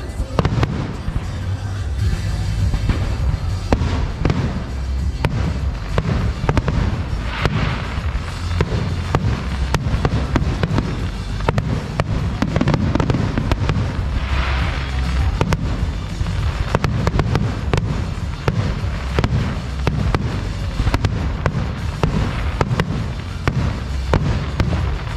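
Fireworks display: a steady run of shell bursts and bangs over a deep rumble, with two longer hissing bursts about seven and fourteen seconds in.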